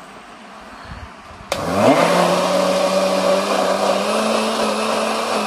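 Electric mixer-grinder (mixie) switched on about a second and a half in: the motor whine rises quickly in pitch as it spins up, then runs steadily, blending oil into liquid cake batter in the jar.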